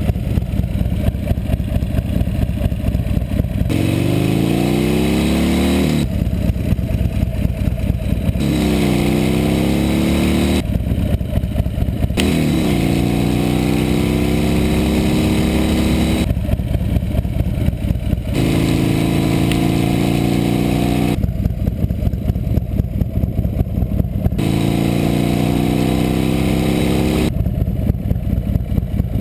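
1998 Buell S1 Lightning's 1203 cc 45-degree air/oil-cooled V-twin running through a Supertrapp exhaust. It sits at a steady idle, then revs up five times, its pitch climbing over two to four seconds each time and dropping back to idle between.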